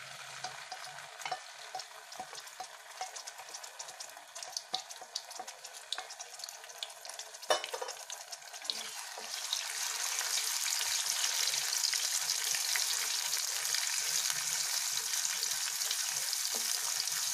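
Tomato, onion and garlic paste frying in hot oil in a kadhai: crackling with scattered small pops and one sharp knock about halfway through. From about ten seconds in it turns into a louder, steady sizzle as the paste is stirred with a wooden spatula.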